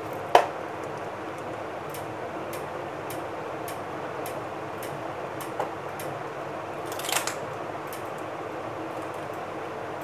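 A sharp click as a plastic paint box is handled, then a small knock and a short clatter about seven seconds in. Under it, a steady room hum and faint regular ticking about twice a second.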